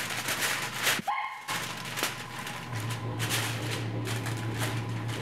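Aluminium foil crinkling and crackling as it is pressed and crimped around the edges of a baking dish, with a brief break about a second in. A low steady hum comes in underneath a few seconds in.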